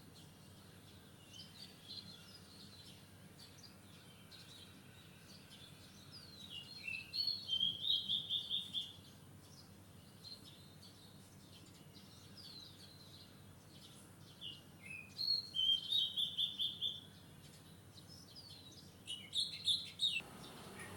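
Wild songbird singing: a phrase of a few quick high notes ending in a fast, even trill, sung three times, with faint chirps from other birds between phrases over a steady low background noise.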